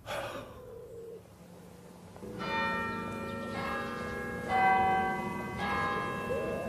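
Church bells ringing: four strikes about a second apart, each at a different pitch and left to ring on, starting about two seconds in.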